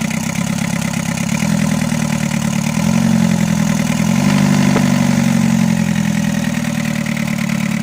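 Mitsubishi Canter's freshly overhauled 4DR7 engine on its first runs, being given throttle to check its response. The engine speed steps up three times over the first four seconds, holds, then eases slowly back toward idle.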